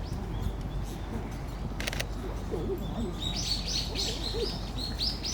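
A bird calling: a quick run of short, evenly repeated high notes, about three a second, starting about three seconds in. Faint distant voices and a single sharp click about two seconds in lie underneath.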